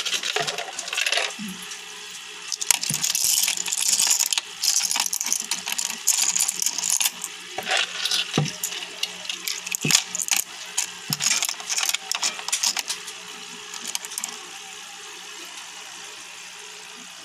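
Water trickling and splashing through the cockle-shell and rock media of a running homemade aquarium top filter, with irregular clinking drips onto the hard shells. A steady low hum runs underneath. The splashing thins out over the last few seconds, leaving mostly the hum.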